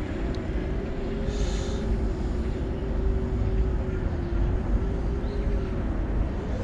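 5-inch FPV quadcopter on Foxeer Donut 5145 toroidal propellers in flight: a steady, deep hum that wavers slightly in pitch and starts to rise near the end as the throttle comes up, over a low rumble. The toroidal props give a low 'woong' rather than the usual sharp, tearing prop whine.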